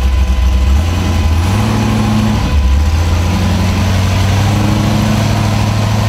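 Rock bouncer buggy's LSX454 V8 engine running at low revs as it drives off up the trail. The pitch steps up about a second and a half in, dips briefly, then holds steady.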